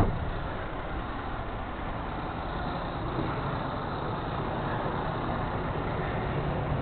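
Heavy diesel tow truck (wrecker) engine idling steadily, growing slightly louder toward the end.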